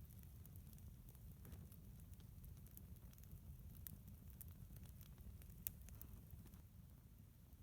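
Faint campfire of birch bark crackling, with occasional sharp pops over a low steady rumble.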